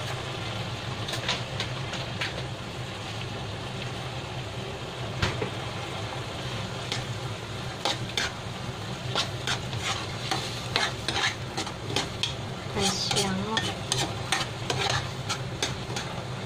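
Spatula scraping and knocking against a pan while stirring a simmering coconut-milk curry, over a steady bubbling sizzle. The scrapes come more often in the second half.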